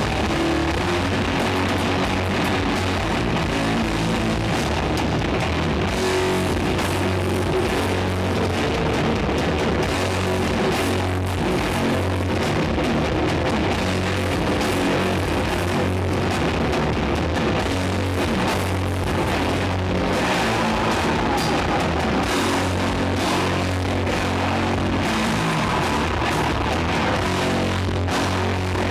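Doom metal band playing live: electric guitars and drums in a loud, dense wall of sound, with long-held low notes.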